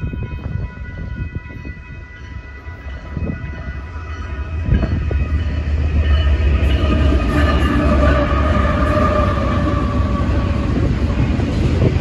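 Electronic railroad crossing bells ringing as a Union Pacific GE AC45CCTE diesel locomotive leads an intermodal stack train up to the crossing. About five seconds in, the locomotive's engine rumble swells loud and its horn sounds in a long blast, and the train runs through the crossing.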